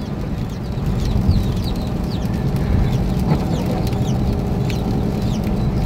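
Chickens peeping inside a moving vehicle's cab: short, high, falling chirps again and again. Under them runs the steady low rumble of the engine and tyres on the wet road.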